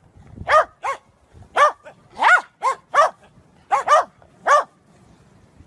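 Corgi barking in short yappy barks, about nine in quick irregular succession, each rising and falling in pitch.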